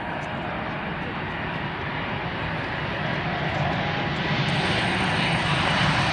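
Airbus A220-300's Pratt & Whitney PW1500G geared turbofan engines at takeoff thrust during the takeoff roll: a steady rushing jet noise that grows steadily louder as the airliner accelerates down the runway toward the listener.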